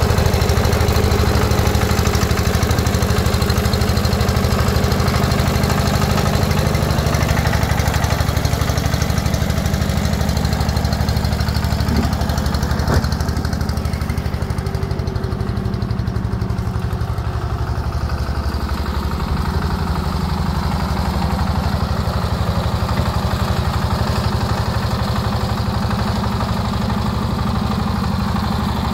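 Small compact farm tractor's engine running steadily while it tows a trailed sprayer. The sound turns duller for a few seconds in the middle, then stays steady.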